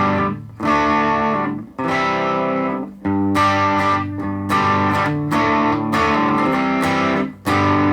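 Electric guitar (Vintage VS6) strumming a run of chords through a Positive Grid Reactor 50 1x12 combo amp on its Grit channel, a mildly driven tone. Each chord is struck and let ring for about a second before the next.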